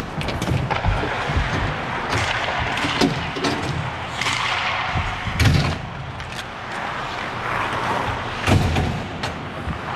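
Ice hockey play on an indoor rink: skates scraping on the ice and sticks clacking, with a steady run of knocks and a few heavy thumps. The loudest thumps come about five and a half seconds in and again about eight and a half seconds in.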